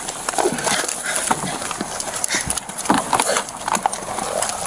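Handling noise on a police body camera: rustling and rubbing against the microphone with irregular knocks and footsteps, and a few brief muffled voice sounds.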